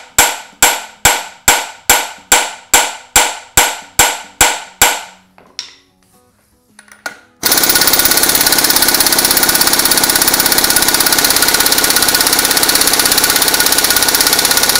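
Hammer blows on a steel flywheel puller, about three a second, each one ringing, shocking the flywheel's taper loose on the crank; they stop about five seconds in. Then, about seven seconds in, a pneumatic impact wrench starts and hammers steadily on the puller's centre bolt, winding up the tension to draw the Classic Mini Cooper S flywheel off.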